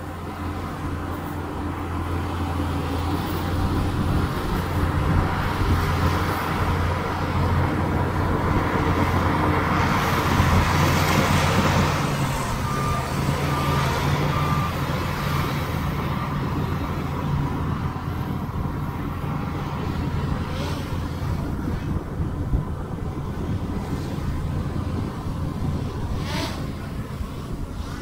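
Bulldozer's diesel engine working steadily with a low hum, growing louder with a rush of noise near the middle as it pushes dirt. About halfway through, a short run of four backup-alarm beeps sounds, and near the end there is a single sharp clank.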